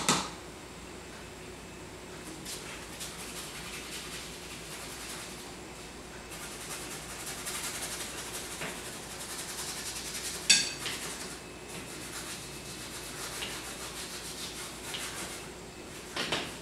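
Paintbrush rubbing acrylic paint onto canvas in repeated scrubbing strokes, with one sharp tap about ten and a half seconds in.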